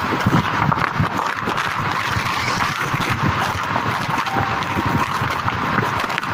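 Wind buffeting the microphone held out of the window of a moving bus, in uneven low gusts over the steady rush of the bus's engine and tyres at highway speed.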